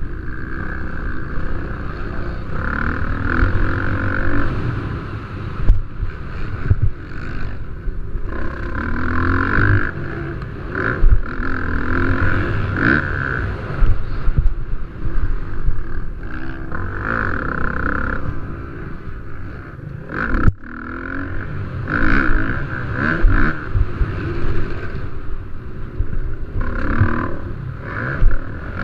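Motocross dirt bikes racing, their engines revving up and falling off again every few seconds, with a steady low rumble and occasional sharp knocks.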